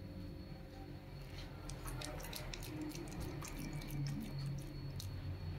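Wet beef meatball dough squished out between the fingers of a fist and scooped off with a metal spoon, giving soft squelches and many small sharp clicks and drips.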